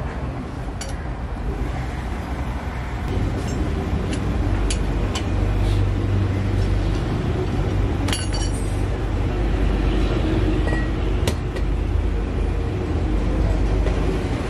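Steady low rumble of a running vehicle engine, with a few sharp metal clinks of hand tools on a truck wheel hub; one clink a little past halfway rings briefly.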